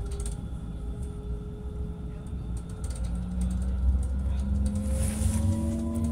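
Tram running on its rails, with a low rumble and scattered clicks. From about three seconds in, an electric motor whine rises slowly in pitch as the tram picks up speed.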